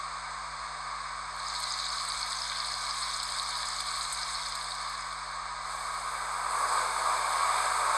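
Hornby HM7000 DCC sound decoder in a W1 'Hush Hush' model locomotive playing its 'fireman's breakfast' effect: a steady frying sizzle, the sound of the fireman's breakfast cooked on a shovel in the firebox. The sizzle joins the loco's background hiss about a second and a half in and grows louder near the end.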